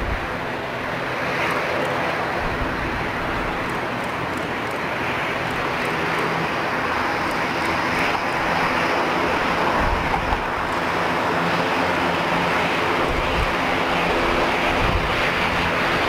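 Jet noise from an Embraer E190's twin turbofan engines as the airliner touches down and rolls out along the runway, growing slightly louder. Wind buffets the microphone in low rumbling gusts, about ten seconds in and again a few seconds later.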